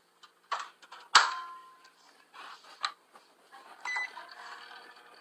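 Microwave oven being set going: a few clicks and a loud clunk of the door shutting about a second in, a short keypad beep near four seconds, then a steady hum as it starts running.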